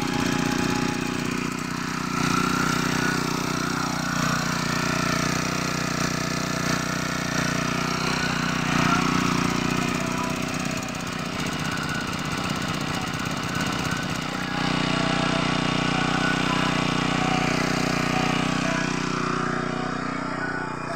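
Small engine of a motorized knapsack power sprayer running steadily at constant speed, a little louder from about two-thirds of the way in.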